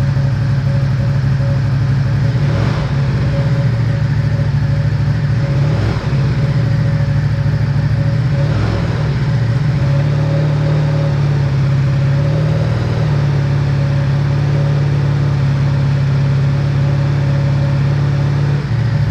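2021 Ducati Diavel 1260's 1262 cc Testastretta V-twin running warm on its factory exhaust. It idles steadily, with brief shifts in pitch a few times.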